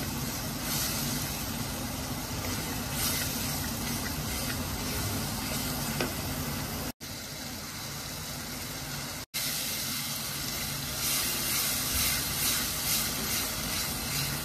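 Spiced masala sizzling and frying in a stainless steel pan as it is stirred with a wooden spatula, a steady hiss while the masala is fried down. The sound cuts out briefly twice, about 7 and 9 seconds in.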